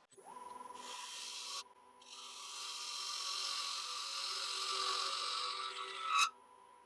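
Wood lathe running with a steady motor whine while a turning tool cuts the spinning wet cherry goblet. There is a short cutting hiss, then a longer one of about four seconds that ends in a sharp click.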